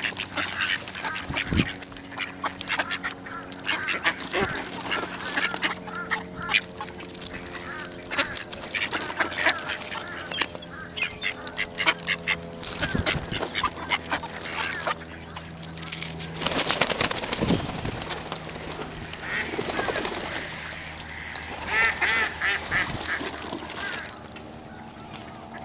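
A flock of mallards quacking while they peck food off a concrete walkway, with many rapid sharp taps of bills on the pavement and a run of quacks near the end.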